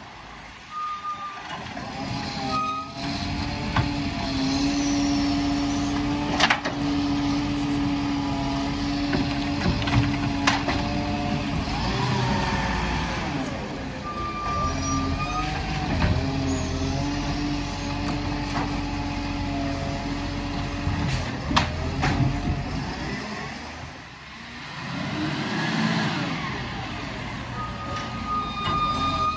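Volvo side-loading garbage truck with a Bucher body working along the kerb: diesel engine and hydraulics running with a steady whine that drops away briefly and returns. Short high beeps sound now and then, with several sharp clicks and hisses such as air-brake releases.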